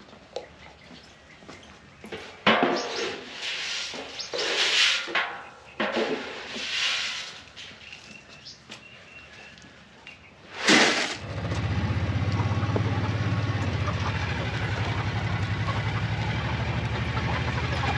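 A few short noisy sounds, then a vehicle engine starts about eleven seconds in and settles into a steady idle.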